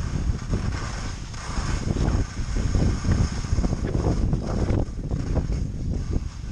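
Wind buffeting the skier's camera microphone while skiing, with skis scraping over wind-crusted snow.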